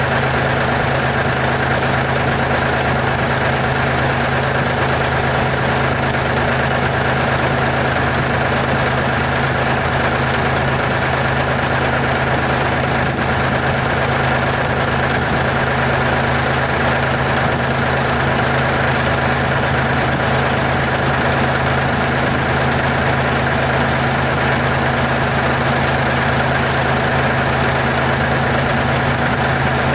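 Diesel engine of a Terex R-35 rigid dump truck idling steadily.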